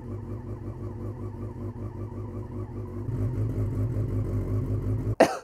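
Yamaha XJ6's 600 cc inline-four engine idling steadily, a little louder from about three seconds in, then shut off near the end.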